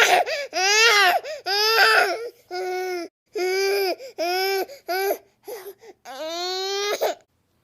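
A baby crying: a run of short, high wailing cries cut apart by abrupt breaks, ending in one longer cry that stops sharply.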